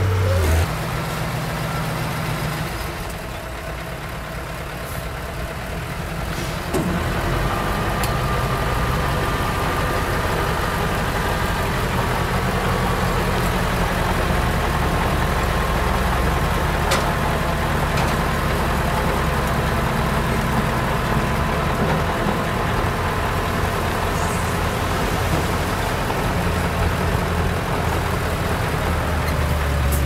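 Diesel engine of a D31 crawler bulldozer running steadily, getting louder about seven seconds in.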